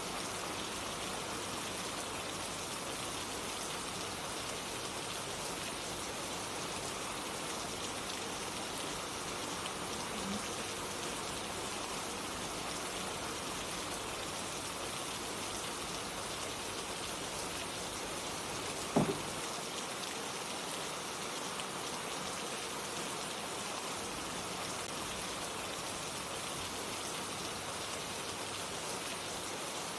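Steady rain falling, an even hiss with no change in level. A single sharp knock cuts through about two-thirds of the way in.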